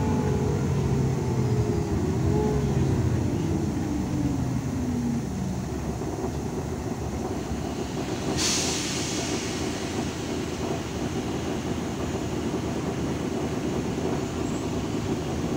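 Irisbus Citelis city bus heard from inside while driving: the drivetrain whine falls in pitch over the first five seconds, then the bus runs on with steady road and engine noise. A short, sharp hiss comes about eight seconds in.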